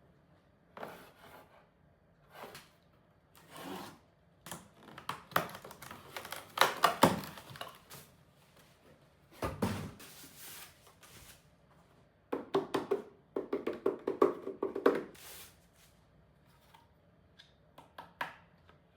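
Handling noises: irregular rubbing, sliding and knocking of hard parts and packaging being moved about. The busiest stretches come about five to eight seconds in and again around twelve to fifteen seconds in.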